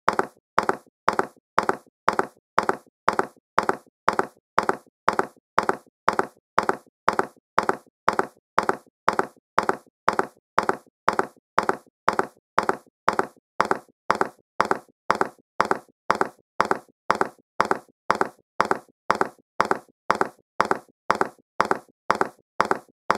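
Horse hoofbeats at a walk: an even clip-clop of sharp knocks, about two to three a second, with no change in pace.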